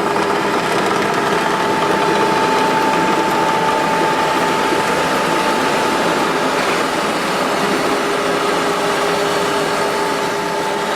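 Automatic door-frame roll forming machine running steadily, its motor and rollers giving a constant mechanical hum with a steady whine.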